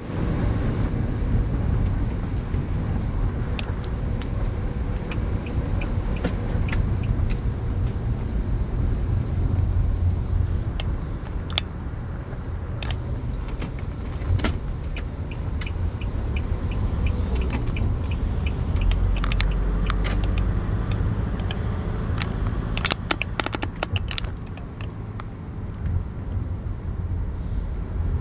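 Steady low vehicle engine and road rumble, with scattered small clicks and rattles, a quick cluster of them about two-thirds of the way through.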